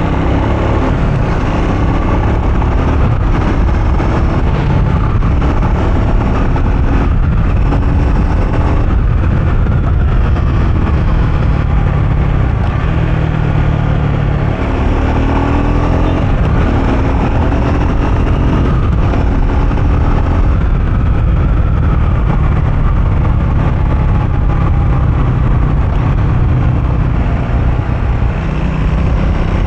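Triumph Speed 400's 398 cc single-cylinder engine on the move, its pitch climbing and dropping back several times as it accelerates and eases off, over a heavy steady low rumble.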